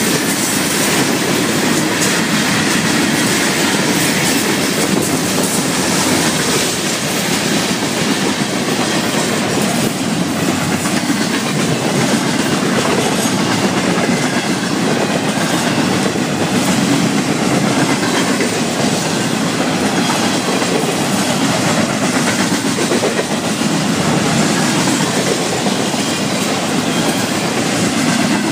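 Florida East Coast Railway freight train rolling past close by, its steel wheels running over the rails under hopper cars and then double-stack container cars. The noise is loud and steady.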